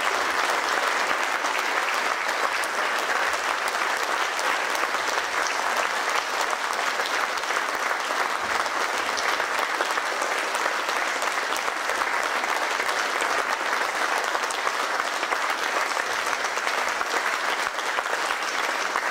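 A large audience applauding steadily: many hands clapping at once in a dense, even patter.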